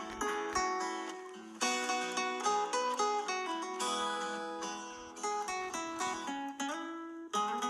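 Background music: plucked acoustic guitar or similar string instrument, picked notes in quick succession.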